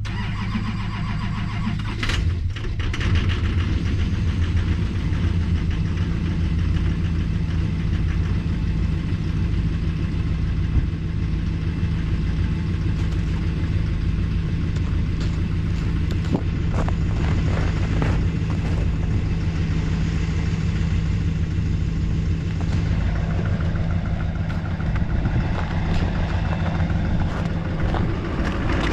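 Duramax 6.6-litre V8 turbodiesel cold-starting: cranking, catching about two seconds in, then idling steadily. It is a cold start in deep cold with one of its eight glow plugs out.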